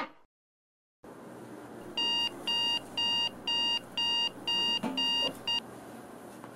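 Phone alarm beeping, about two beeps a second: seven high, even beeps, then an eighth cut short.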